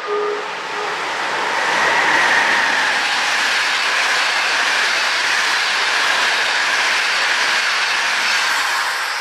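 Locomotive-hauled passenger train passing on the adjacent track: a loud, steady rush of wheels on rail that builds over the first two seconds and then holds.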